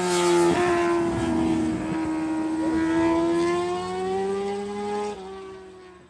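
Multirotor camera drone's electric motors and propellers whining steadily, with a pitch that shifts slightly as the throttle changes; it fades out near the end.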